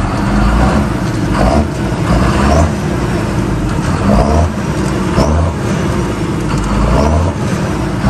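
John Deere 6930's six-cylinder turbo-diesel, warmed up, revved in short repeated blips about once a second, with a thin rising whistle on several of them, heard from inside the cab.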